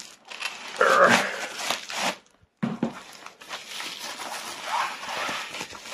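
Duct tape being pulled and torn off a parcel, then bubble wrap crinkling and rustling as it is unwrapped by hand.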